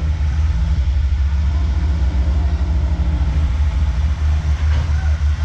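Heavy excavator diesel engine running steadily, a continuous low rumble.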